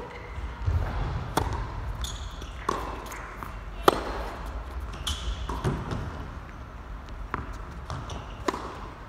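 Tennis rally: a serve struck about a second in, then racquet strikes and ball bounces trading back and forth roughly every second. The sharpest strike comes about four seconds in, and short high squeaks of shoes on the court fall between the hits.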